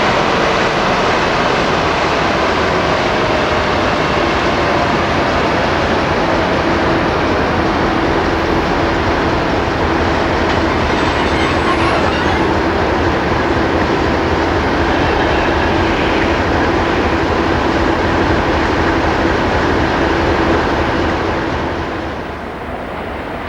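Freight train rolling past on the rails: a long, steady rumble of wagons with a held tone through most of it, easing off near the end.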